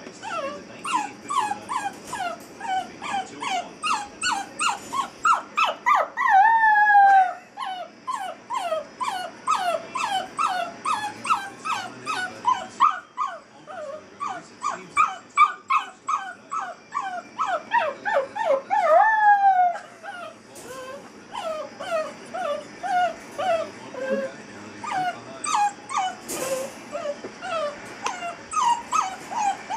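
Eight-week-old basset hound puppy crying at being shut in a crate: quick, repeated high whining yelps, two to three a second, broken twice by a long howl that falls in pitch.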